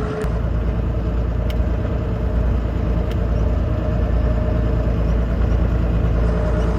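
Farm tractor's diesel engine running steadily under way.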